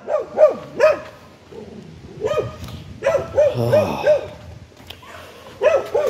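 Small dog barking repeatedly, in quick runs of two to four short barks with brief pauses between them.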